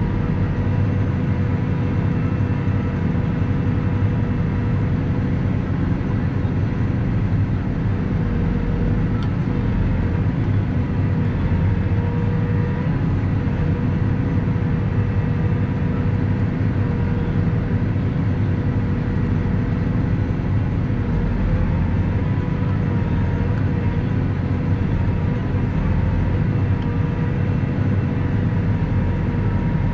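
Valtra 154e tractor engine running steadily under hydraulic load as it works the Kesla 144ND timber crane, a constant rumble with a steady whine over it, heard from inside the cab.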